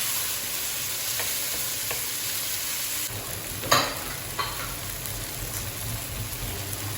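Onion, garlic and tomato sautéing in hot oil in a pan, sizzling steadily, with a sharp knock a little over halfway through and a fainter one just after.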